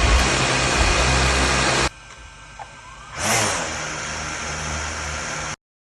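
DJI drone's electric motors and propellers whirring steadily at speed. The sound drops suddenly about two seconds in, spins up again with a rising whine a little after three seconds, then cuts off abruptly near the end.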